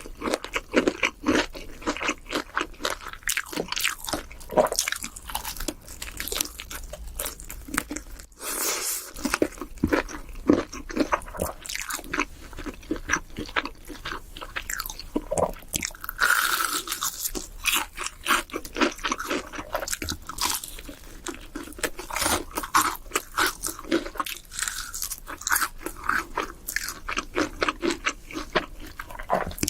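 Close-miked crunching and chewing of crispy fried chicken, with many irregular sharp crackles of the breaded crust as it is bitten and chewed.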